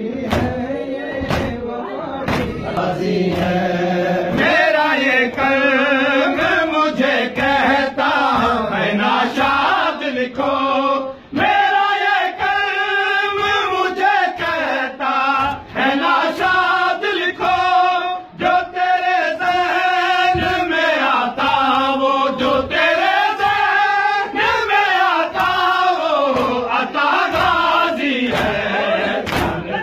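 Group of men chanting an Urdu noha, a Shia Muharram lament, in a sung melody with no instruments. Hands slapping chests in matam keep a steady beat under the chant.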